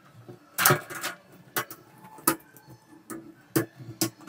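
White wire fan grilles clicking and knocking together as the front grille is fitted onto the rear grille's slots: a cluster of sharp clicks about half a second in, then single clicks every second or so.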